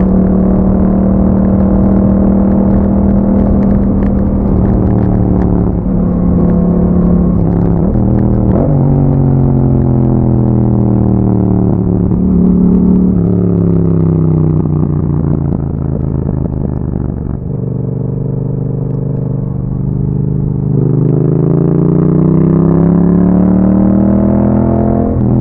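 2021 Yamaha MT-07's parallel-twin engine running through an aftermarket Akrapovic exhaust while riding. Revs hold steady for about eight seconds, then drop with a gear change and fall away, briefly pick up, and sink to a low steady pull. They then climb again over the last few seconds, with another shift right at the end.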